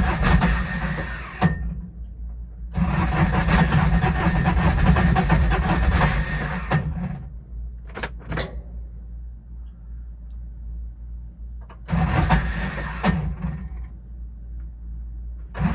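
Diesel UTV engine being cranked by its starter in repeated bursts without firing: three attempts, the middle one about four seconds long, and a fourth beginning at the end. This is a hard start, which the owner puts down to a bad starter Bendix drive and glow plugs he suspects are not working.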